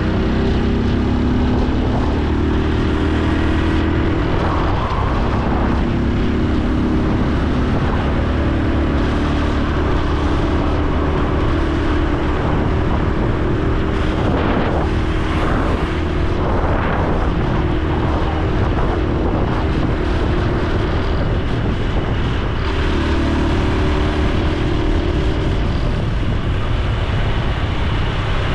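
Honda Super Cub C125's air-cooled single-cylinder engine and exhaust heard on the move, its note rising and falling with the throttle and gear changes, over steady wind and road noise.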